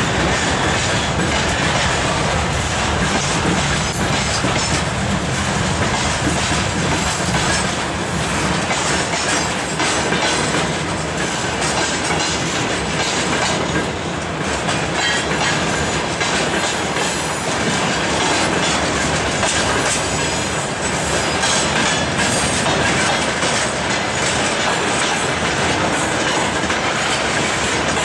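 Freight train wagons, tank cars and open gondolas, rolling steadily past with a continuous clickety-clack of wheels over rail joints.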